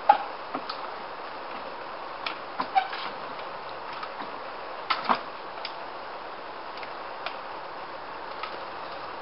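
26-inch trials bike hopping and landing on stacked wooden pallets: sharp knocks as tyres and frame hit the wood, one just at the start, a few between two and three seconds in, the loudest pair about five seconds in, and lighter taps later, over a steady hiss.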